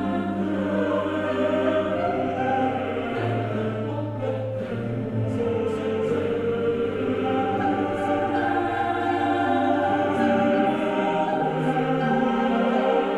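Background music: a choir singing long held chords over a sustained low bass note, slow and solemn.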